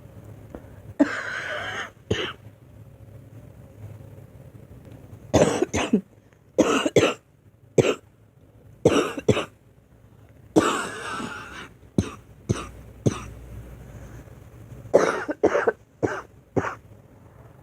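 A girl coughing in repeated short bouts, each of several sharp coughs, with pauses of a few seconds between them.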